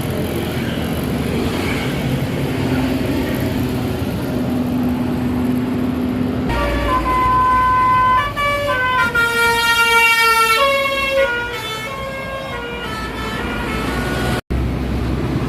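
A bus's basuri telolet horn, a multi-tone musical air horn, playing a melody of stepped, held notes for about five seconds, starting about six seconds in and trailing off fainter. Before it, the bus's engine rumbles with a low steady hum.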